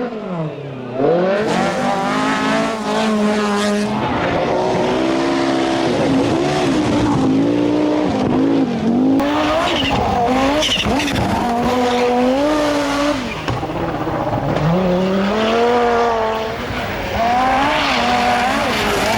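Group B rally car engines revving hard, the pitch climbing and dropping again and again through gear changes and lifts, with the sound switching abruptly twice.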